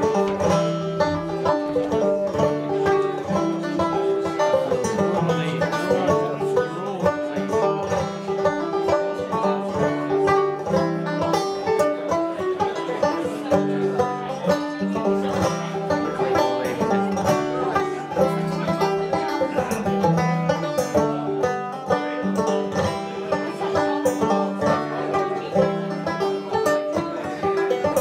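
Five-string banjo played clawhammer style: a Scottish tune carried on a steady, unbroken run of plucked notes.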